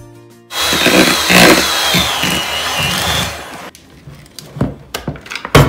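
Electric hand mixer running at speed for about three seconds with a wavering high whine, beating flour into cake batter. It is followed by a few knocks and clacks, the loudest near the end.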